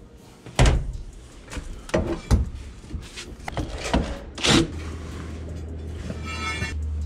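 Several sharp knocks and clanks of hand tools against metal while working at the top-loader transmission's shifter bolts through the floor opening of the truck cab. A steady low hum comes in about two-thirds of the way through.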